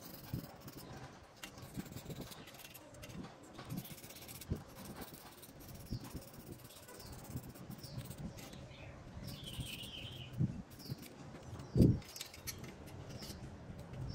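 Small metal phone parts handled and set down on a stainless steel tray: scattered light clicks and taps, with one louder thump about twelve seconds in. Faint bird chirps in the background.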